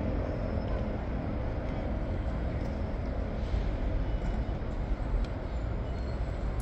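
Steady low rumble of city traffic noise, with no clear single event.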